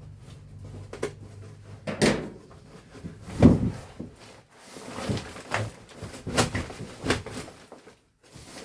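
Irregular knocks and clunks from work on old sheet-metal return-air ductwork, about half a dozen, the loudest about three and a half seconds in, with quieter scraping between them.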